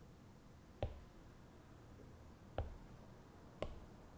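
Apple Pencil tip tapping on an iPad Pro's glass screen: three light, sharp taps spaced irregularly, as folders and the save button are selected.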